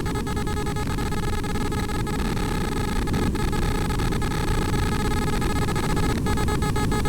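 Dense electronic noise drone with several steady high tones layered over a rough low rumble and faint crackle, slowly growing a little louder.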